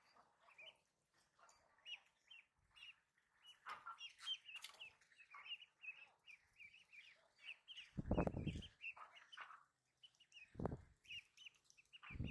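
Ducklings peeping: a rapid, continuous run of short high-pitched cheeps from the flock. A few brief low bursts of noise break in, the loudest about eight seconds in and again near the end.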